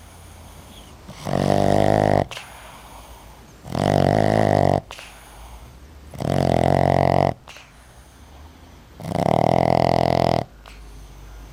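Sleeping Boston terrier snoring loudly: four long, rasping snores at a steady pace, about one every two and a half seconds, with quieter breathing between them. Loud snoring is typical of this short-nosed breed.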